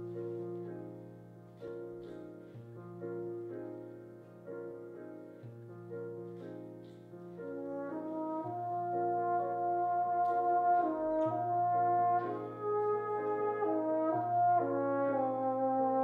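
Tenor horn and baritone horn duet with digital piano. The piano plays a gentle introduction of repeated chords over slow-changing bass notes. About halfway through, the brass horns come in with a sustained legato melody and the music grows louder.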